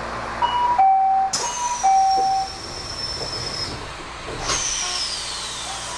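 Train door-closing chime on a Kobe Electric Railway local: a two-tone ding-dong sounding twice, then a high electric whine falling in pitch, heard twice, as the train starts to move.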